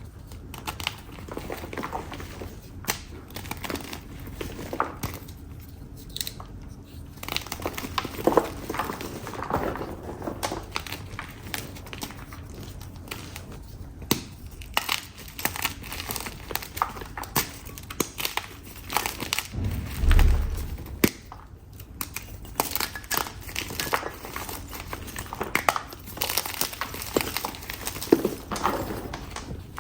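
Dyed chalk being crushed and crumbled by hand: irregular crisp crunches and crackles, some sparse and some in quick clusters, with a low thump about two-thirds of the way through.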